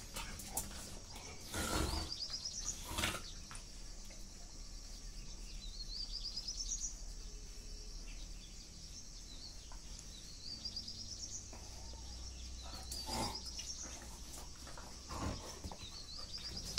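Two dogs play-fighting, with a few short, sharp scuffles and snaps. These are loudest about two and three seconds in and again near the end. Behind them, a bird repeats a short rising run of high chirps every few seconds.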